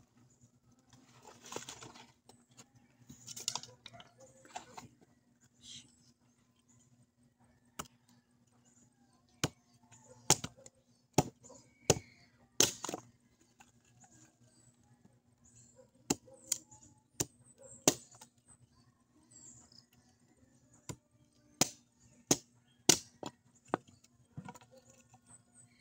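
Firewood being split by hand for a cooking fire. A few seconds of rustling come first, then from about nine seconds in a string of sharp chopping strikes, in loose clusters roughly a second apart.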